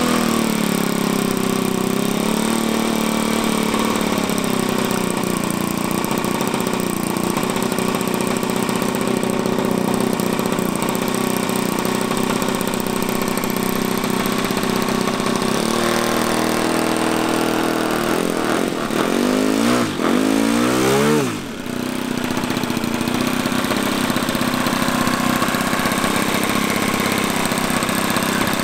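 Four-stroke glow engines of a large RC Cessna 337 Skymaster model (a push-pull twin) running on the ground. About two-thirds of the way in, their pitch shifts and sweeps up and down against each other as the throttle is worked. After a brief dip it settles into a steady run.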